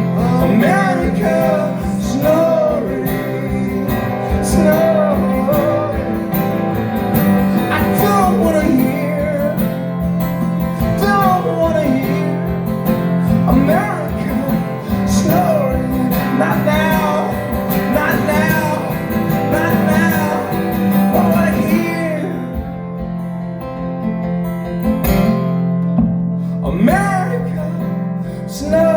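Live acoustic guitar music, strummed under a melody line that bends in pitch, over a sustained low drone; the sound thins out briefly about two thirds of the way through.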